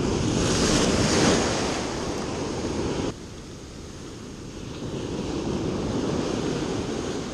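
Ocean surf washing up the beach, loudest in the first three seconds. It drops off abruptly about three seconds in, then swells again.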